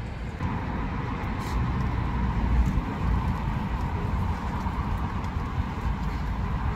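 Jet airliner flying low overhead: a steady engine rumble with a high whine that joins about half a second in.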